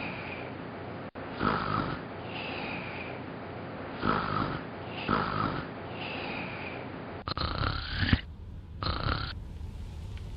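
A sleeping person snoring, with a loud snore every one to three seconds. The snoring stops shortly before the end, leaving a steady car-cabin rumble.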